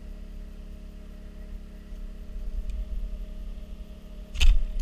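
A bowfishing bow fired once about four seconds in: a sharp, brief crack of the string releasing the arrow. Under it the boat's motor hums steadily.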